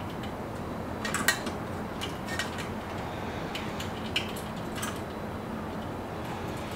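A few small metal clicks and taps, scattered and irregular, as washers and a bolt are worked into the holes of a Weber Jumbo Joe kettle grill's enamelled steel lid, over low steady background noise.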